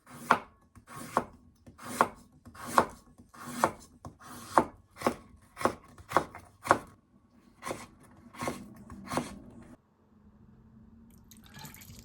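Kitchen knife chopping food on a cutting board: a steady series of sharp cuts, about two a second, that stops about ten seconds in.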